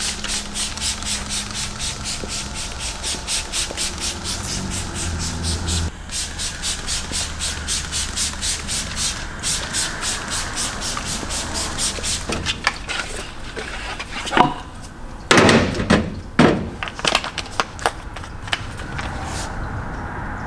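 Quick, even back-and-forth scrubbing strokes, about four a second, rubbing over a car's surface. The strokes stop about twelve seconds in, and a few louder squeaky rubs follow.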